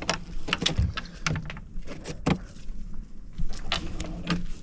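Plumbing gear being handled: a run of irregular clicks and knocks over a low steady hum, with a quieter stretch about three seconds in.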